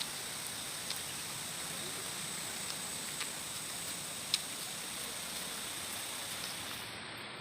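River water flowing steadily, an even rushing hiss, with a faint steady high-pitched tone over it and a few soft clicks.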